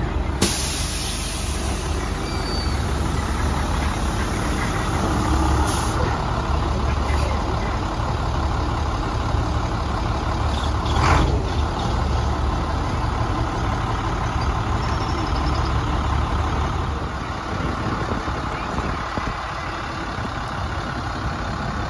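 Engine of an International 3800 chicken bus, a converted school bus, running steadily as the bus moves slowly past close by. A sharp burst of air hiss comes about half a second in, and a shorter hiss about eleven seconds in.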